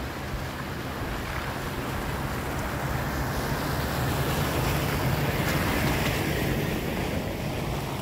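A vehicle driving, its engine running low and steady under wind and road noise that slowly grows louder.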